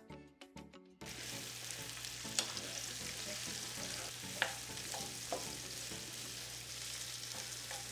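Sliced red onion sizzling in hot oil in a frying pan, stirred with a spatula that clicks against the pan a few times. Background music plays for about the first second, then cuts off as the sizzling starts.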